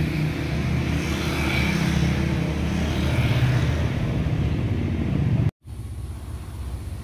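An engine running steadily with a low, even hum. It cuts out sharply about five and a half seconds in and comes back quieter.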